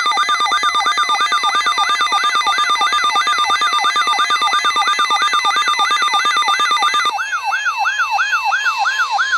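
Electronic emergency alert signal: a steady tone near 1 kHz overlaid with a siren-like rising whoop that repeats about three times a second. About seven seconds in, the whoop slows to about two and a half a second while the steady tone continues.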